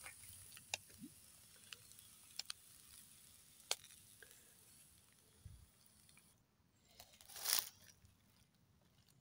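Faint ticking and crackling from a charcoal fire under shashlik skewers, with a few sharp clicks over a soft steady hiss. A short rustle comes near the end.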